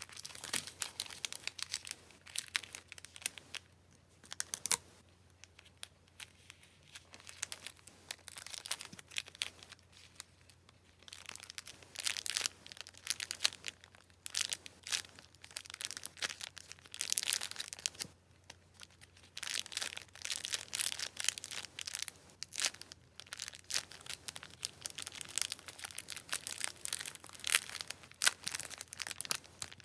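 Packing materials crinkling and tearing by hand as a parcel is packed, in irregular spells of crackly rustling with a couple of quieter pauses.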